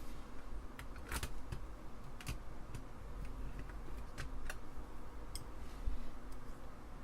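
Scattered light clicks and taps as small parts of an Apple II Plus keyboard and hand tools are handled, over a steady low hum.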